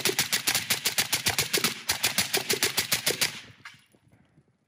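Suppressed rifle in 300 Blackout firing 147-grain supersonic rounds in a rapid string of shots, a magazine dump that stops about three and a half seconds in as the magazine runs empty.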